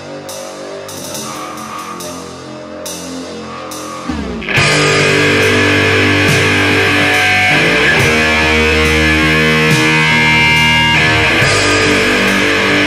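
Heavy metal band recording: a quieter guitar passage with sharp repeated hits, then, about four and a half seconds in, the full band comes in much louder with electric guitars, bass and drums.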